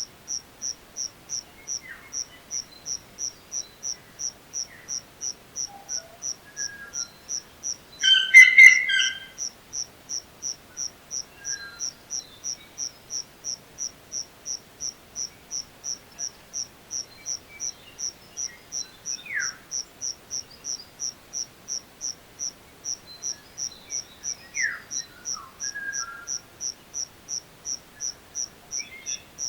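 Grass insects chirping in a steady, even pulse, about two high-pitched chirps a second, with birds calling now and then; the loudest call comes about eight seconds in. An added nature-sound track, not live sound.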